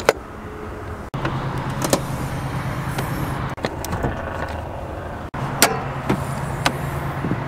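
Several sharp clicks and clunks of a pickup truck's hood-release lever being pulled and the hood latch letting go, over the steady low hum of an idling engine.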